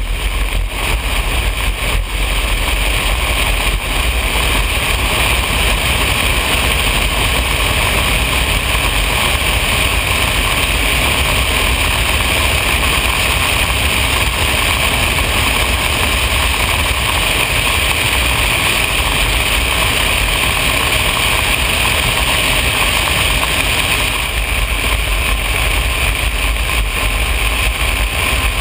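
Cessna 180 floatplane's engine and propeller running steadily at a loud, even drone, with a slight change in tone near the end.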